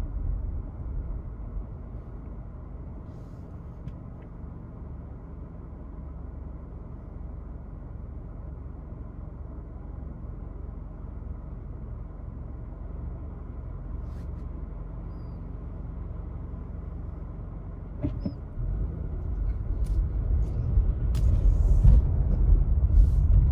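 A car's engine idling, heard from inside the cabin as a steady low hum while the car waits at a stop. Near the end the car pulls away and the engine and tyre noise on the wet road grow louder.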